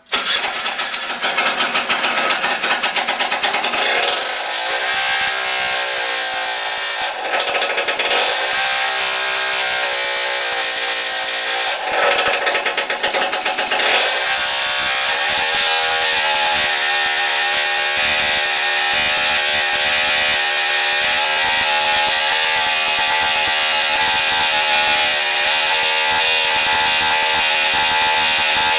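The 48-cylinder Kawasaki engine running, revved up and down several times in the first half, then held at a steady speed.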